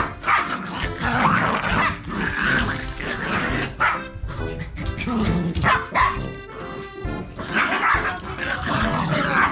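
Two small dogs, a mame-shiba × toy poodle and a Pomeranian × Maltese, barking and growling at each other in a fight, over background music.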